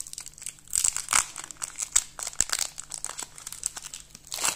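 Pokémon card booster pack's foil wrapper crinkling as it is handled and torn open. The crackles are irregular, with louder bursts about a second in and again near the end.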